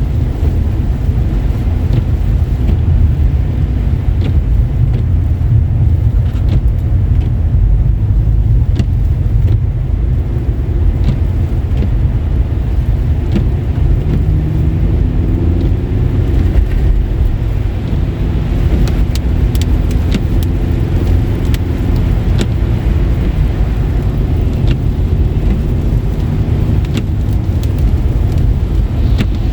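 Car driving on a wet, slushy road: a steady low rumble of tyres and road noise, with scattered faint clicks and a faint steady hum that comes in around the middle.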